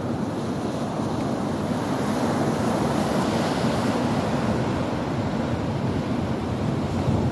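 Sea waves washing onto the shore, a steady rush of surf.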